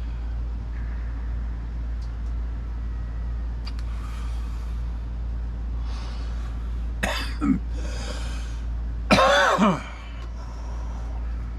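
A man coughing: a short pair of coughs about seven seconds in, then a louder cough about two seconds later that trails off falling in pitch, over a steady low hum.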